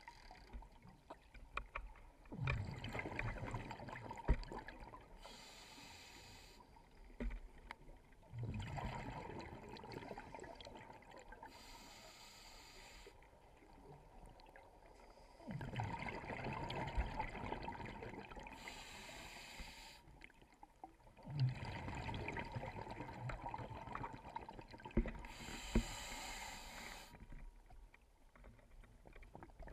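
Scuba diver breathing through a regulator, heard underwater: about four slow breaths, each a short high hiss of air drawn through the regulator and a longer rumbling, gurgling rush of exhaled bubbles.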